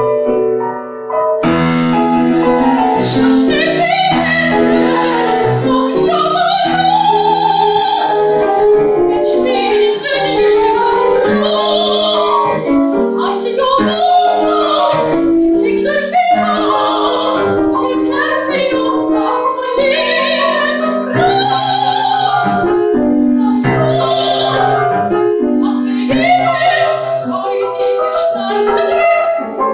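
Soprano singing a German art song with grand piano accompaniment. The piano plays alone for a moment, then the voice comes in about a second and a half in, with a wide vibrato, and carries on over the piano.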